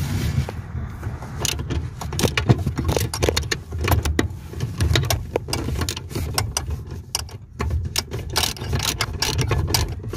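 Irregular metallic clicks and clinks of a hand wrench being worked on the brake booster's mounting nut behind the brake pedal, over a low, uneven rumble of the phone being handled.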